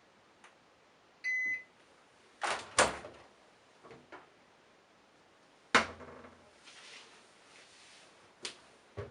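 Candy Bianca washing machine giving one short electronic beep, typical of the signal that the cycle has ended. A series of plastic clicks and knocks follows, with two loud ones soon after the beep, which fits the door being handled and opened.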